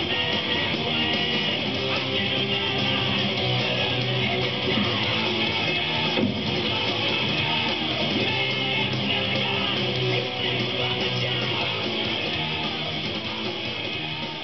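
Background music with strummed electric guitar, fading out near the end.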